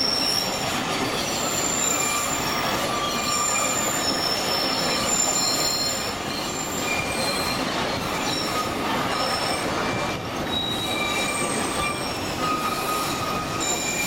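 Train cars rolling through a curve, with the wheels squealing against the rails in several high, steady tones that come and go over a continuous rolling rumble.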